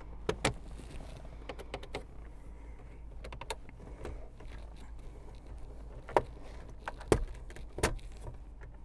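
Plastic center dash bezel of a 2001 Toyota Camry being pulled loose by hand, with scattered sharp clicks and snaps as its retaining clips let go: a pair near the start and three more spread over the last few seconds. The clips come free without breaking.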